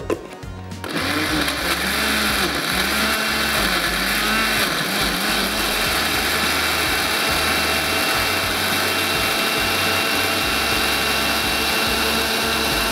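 Electric blender running at full speed, puréeing boiled tomatoes. It starts about a second in and then runs steadily, its motor pitch wavering up and down for the first few seconds.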